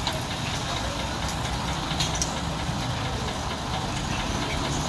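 Diesel engine idling steadily.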